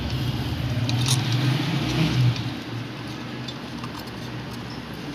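A low steady motor hum that fades after about two seconds, with a few light clicks as a wooden strip is fitted between two iron plates in a plastic bottle of salt water.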